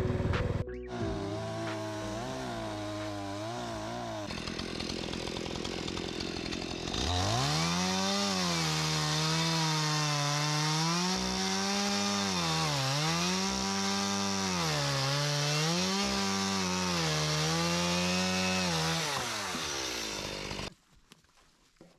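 Gas-powered saw running at low speed, then revving up about seven seconds in and working under cutting load, its pitch dipping and recovering about every two seconds. It slows near the end and stops abruptly.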